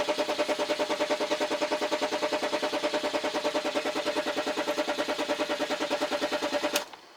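2003 BMW 530d's straight-six diesel cranking on the starter motor without firing, at an even rhythm of about ten compression pulses a second over a steady starter whine; the cranking stops suddenly near the end. It will not start for lack of fuel rail pressure.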